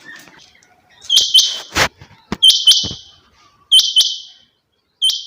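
Quail calling: a harsh, raspy two-note call repeated four times, about once every second and a half. A few sharp knocks fall between the calls in the middle.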